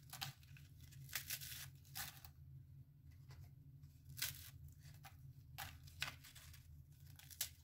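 Plain petit beurre biscuits being snapped by hand into large pieces, a faint crisp crack every second or so.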